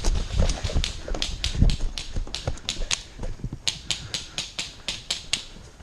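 A run of sharp clicks, irregular at about three to four a second, with low thuds mixed in during the first two seconds; the clicks thin out and stop near the end.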